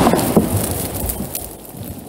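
Tail of a large firework's blast in the ground: the boom dies away steadily, with scattered sharp hits of thrown dirt and mud clods falling back down.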